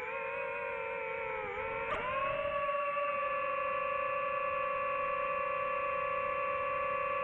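DJI FPV drone's motors and propellers whining in flight. The pitch sags, jumps up sharply about two seconds in, then holds steady.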